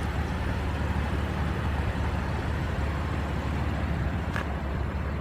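Steady low background rumble and hiss, even throughout with no distinct events.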